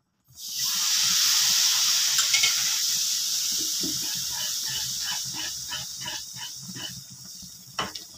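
A ladleful of hot oil poured into a Mysore pak batter of gram flour and sugar syrup sizzles loudly, setting in suddenly and slowly dying away. The sizzle is the sign the oil is hot enough. The frothing batter is then stirred with a wooden spatula in strokes about twice a second, with a single knock near the end.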